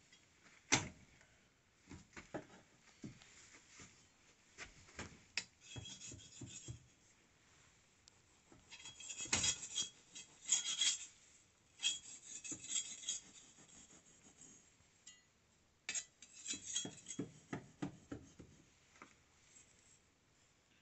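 A board being cut by hand along a marked line: rasping, scraping strokes of a blade in short bursts, with knocks and handling clatter in between.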